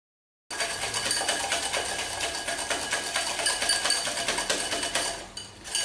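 Wire balloon whisk beating butter and powdered sugar in a glass bowl, its wires clicking rapidly and evenly against the glass as the butter is creamed. The sound starts abruptly about half a second in and fades near the end.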